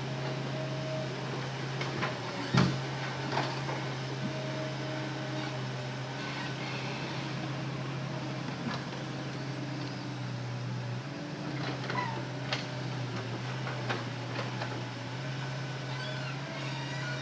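Hitachi Zaxis excavator's engine running steadily under hydraulic load while loading logs, its hum dipping briefly in pitch partway through, with faint whining tones. Sharp knocks from the logs and machine come through several times, the loudest about two and a half seconds in.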